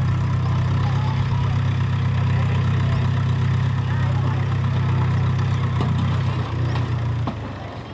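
Mahindra tractor's diesel engine idling steadily. Its note shifts about six and a half seconds in, and it fades out near the end.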